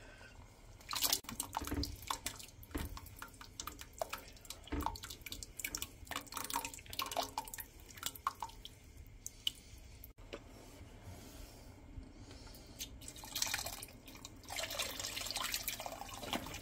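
Canned diced tomatoes plopping and splashing into a stainless steel stockpot, stirred with a wooden spoon in a run of short wet splashes and clicks. Over the last few seconds, broth pours from a carton into the pot with a steadier rushing splash.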